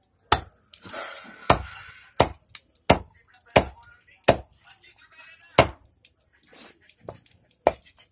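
A large knife chopping a fish into chunks: about eight sharp blows at an uneven pace, roughly one every half second to second, each cutting through the fish and striking the hard slab beneath.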